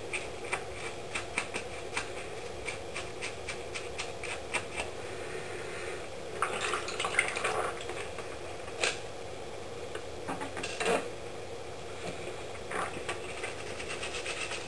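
Toothbrush bristles scrubbing a plastic miniature, brushing off paint softened in a Dettol soak. Quick, regular strokes come first, then a louder spell of scrubbing about halfway, with a few knocks of the model and gloved hand against the sink.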